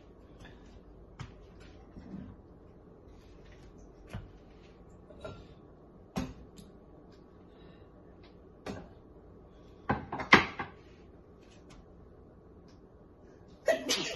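Kitchen handling noises: scattered short knocks and clicks, with a louder clatter about ten seconds in.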